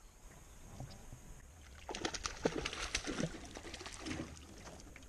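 A hooked largemouth bass splashing and thrashing at the water's surface beside a small boat as it is landed, a quick run of sharp splashes about two seconds in that fades after about two seconds.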